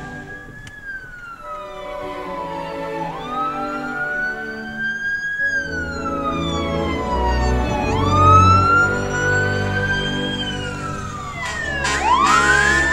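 Fire apparatus sirens wailing, the pitch sliding slowly up and down every few seconds over the low rumble of a passing fire engine. Near the end a second siren starts with a quick rising sweep, so two sirens wail together.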